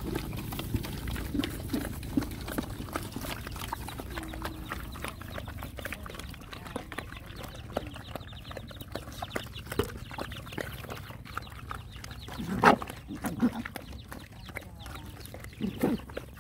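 A pack of dogs eating together from one bowl: a steady patter of small wet chewing and lapping clicks. Two louder short animal sounds cut in, one about three-quarters of the way through and one near the end.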